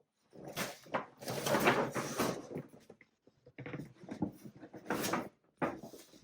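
Packaging being handled and opened: bursts of rustling and scraping of paper and cardboard, with a few light knocks.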